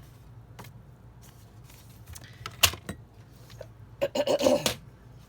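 Cut card stock being handled on a work table: light rubbing and scraping of paper, with one sharp tap a little over halfway through and a short flurry of rustling about four seconds in.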